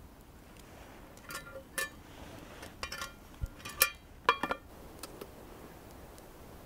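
Metal lid clinking against a small metal camping pot as it is set on, a handful of short ringing clinks in the middle, the last two the loudest.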